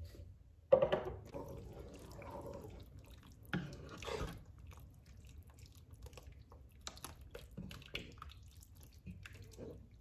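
Wooden spoon stirring soup in a non-stick pan: liquid sloshing, with the spoon knocking against the pan, sharply about a second in and a few more times after.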